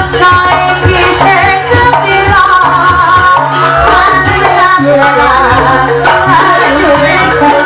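Live East Javanese jaranan dance music, loud and continuous: a wavering, gliding melody with singing over steady drumming.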